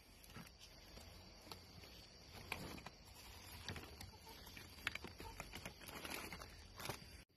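Faint handling noise while a small hooked catfish is held: scattered light clicks and short rustles over a low hiss. The sound cuts off suddenly near the end.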